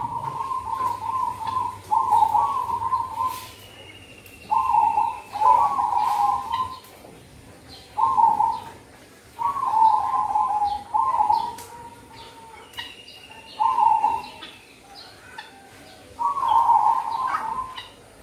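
Zebra dove cooing: a series of short phrases of rapid, rolling coos, each about a second long, repeated roughly every one to two seconds. A thin high whistle sounds faintly in the background twice.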